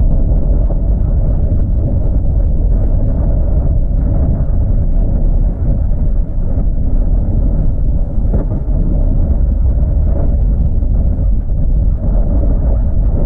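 Steady low rumble of a vehicle driving, engine and tyre noise heard from inside the cabin.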